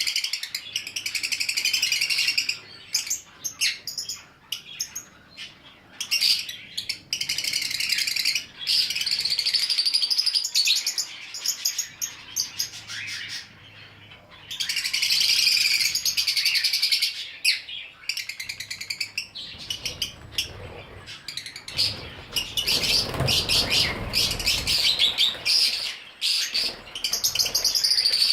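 A group of small pet parrots chattering and chirping in fast, high runs with short pauses, and a low rumble for several seconds past the middle.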